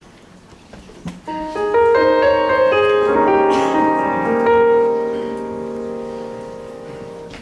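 A piano plays notes one after another that build into a full chord, held and slowly dying away.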